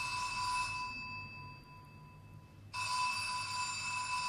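Telephone bell ringing in two rings: the first ring stops about a second in, and after a short pause the second begins near three seconds and carries on.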